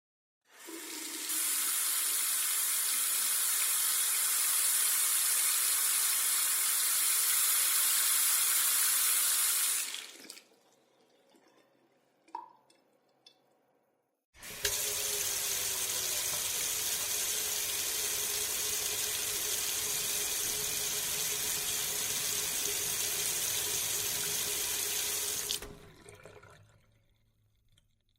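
Water running steadily from a tap for about ten seconds, then stopping, a few faint small sounds in the quiet gap, then a second spell of running water for about eleven seconds with a steady hum underneath, stopping near the end.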